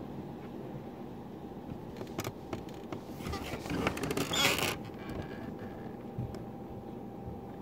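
Rustling and shuffling of a person moving about the room, with a few clicks starting about two seconds in and the loudest scraping stretch in the middle, over a steady background hum.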